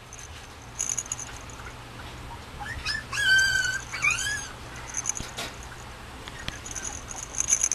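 Mame shiba puppy whining and yelping: a short run of high cries that rise and fall, the loudest held briefly, in the middle of the stretch. Light rustling comes near the start and near the end.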